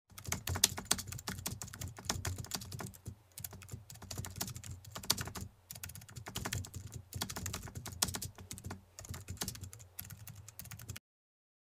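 Keyboard-typing sound effect, rapid clicks in runs broken by short pauses, with a low hum beneath, cutting off suddenly near the end.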